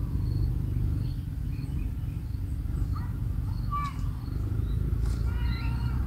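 Kingfisher chicks calling: a few short chirps midway, then a run of brief pitched calls near the end, over a steady low rumble.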